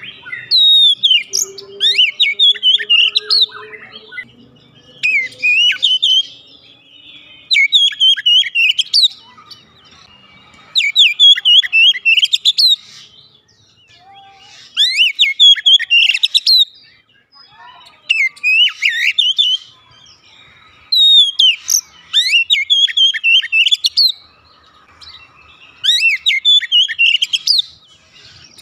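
Oriental magpie-robin singing: about ten loud phrases of quick, varied whistles and trills, each a second or two long, with short pauses between them.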